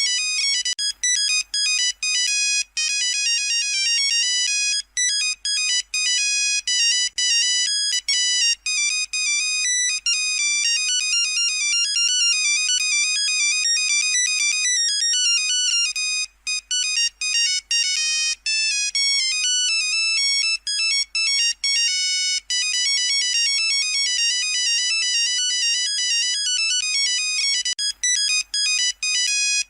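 Nokia 3310 monophonic ringtone playing: a fast melody of short, bright beeping notes that runs on without a break.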